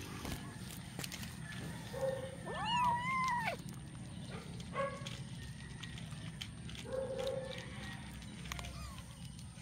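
Kitten meowing: one long meow that rises, holds and falls about two and a half seconds in, with a few short, lower mews around it. Scattered light clicks come from the kittens eating dry kibble.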